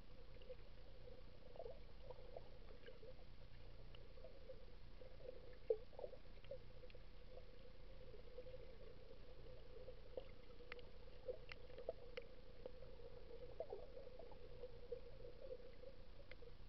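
Underwater ambience heard through a camera's waterproof housing: a faint, steady hum with scattered small clicks and crackles, and one sharper click about six seconds in.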